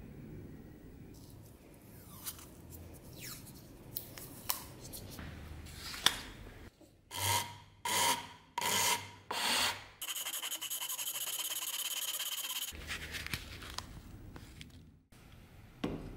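A steel dagger blade rubbing across paper in four quick, hissy strokes, followed by a steadier scraping hiss lasting a couple of seconds. Light handling clicks come before the strokes.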